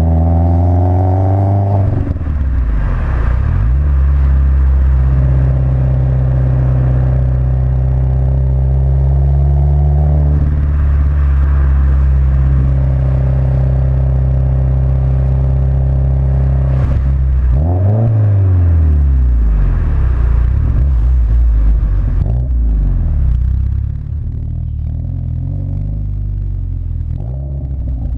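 2015+ Subaru WRX's turbocharged flat-four through an Invidia catted J-pipe and Agency Power titanium quad-tip cat-back exhaust, heard at the tailpipes while driving. The revs climb at the start, hold a steady note while cruising, drop and climb again between gears, and the exhaust goes quieter near the end.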